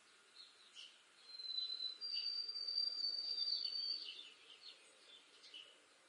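White-throated sparrow singing its whistled song: a clear note starting about a second in, then a slightly higher note held steady for about two seconds. Short chirps from other birds sound faintly around it.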